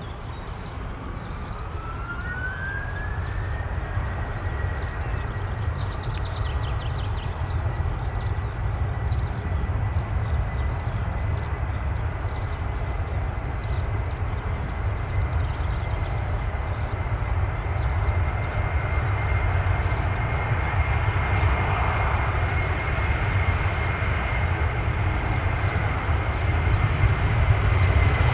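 Jet airliner approaching, its engines a deep rumble that grows steadily louder. A high engine whine rises over the first few seconds, then holds steady.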